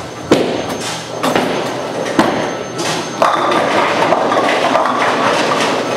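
Bowling alley noise: bowling balls knocking onto the wooden lane, a sharp thud about a third of a second in and another about two seconds in, then a steadier rumble of balls rolling down the lanes from about three seconds on.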